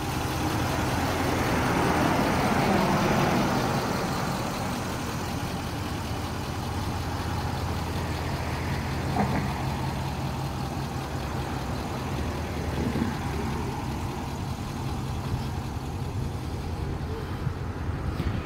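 Nissan Titan XD's Cummins turbo-diesel V8 idling steadily. A louder rushing sound swells and fades over the first few seconds.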